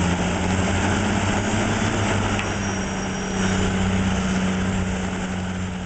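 A heavy machine's engine running steadily with a low, even drone.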